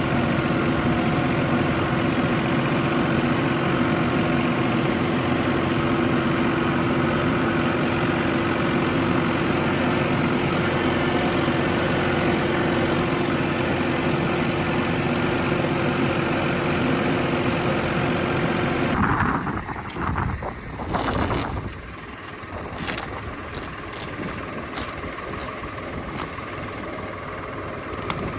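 An engine running steadily. About two-thirds of the way in, the sound changes abruptly to a quieter background with scattered clicks.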